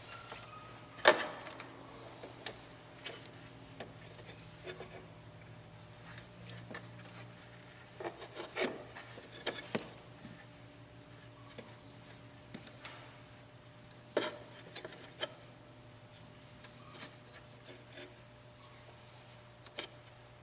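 Electrical tape being pulled off the roll and wrapped around a spliced wiring pigtail, heard as scattered rubbing and rasping with occasional sharp clicks and ticks, over a faint steady low hum.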